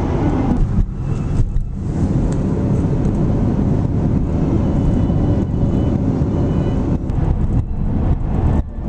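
Road noise inside a moving car's cabin on the highway: a steady low rumble of tyres and engine, dipping briefly about a second in and near the end.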